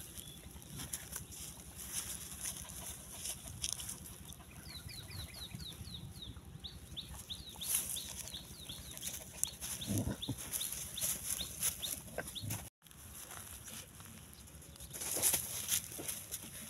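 Dog chewing and gnawing meat, with scattered wet crunching clicks. A bird gives a quick run of short, falling chirps from about four to eight seconds in.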